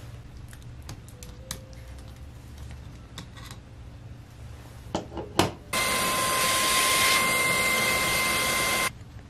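Light clicks and taps of laptop parts being handled, then a small electric motor tool running at a steady whine for about three seconds, starting and stopping abruptly.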